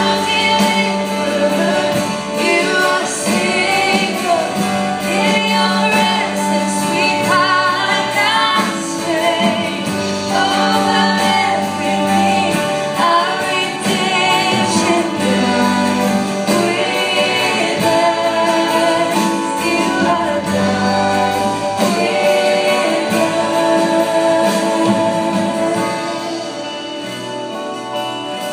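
A woman singing a contemporary worship song live into a microphone, backed by acoustic guitar and a band with bass. The music eases off somewhat near the end.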